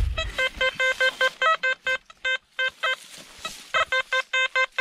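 XP Deus metal detector giving a rapid run of short, same-pitched beeps, about four or five a second, as the coil sweeps back and forth over a buried target, with short breaks about two seconds in and again near three and a half seconds.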